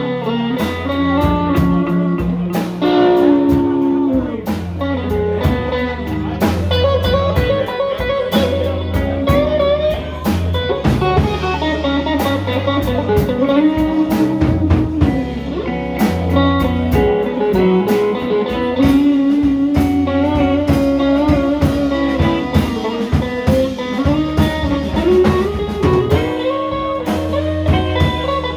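Blues band playing an instrumental stretch: an electric guitar solo with bent notes over bass and drums.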